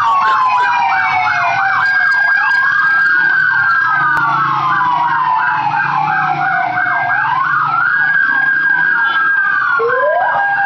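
Several police vehicle sirens sounding at once: a fast yelping warble overlapping slower wails that rise and fall every couple of seconds, with vehicle engines running underneath.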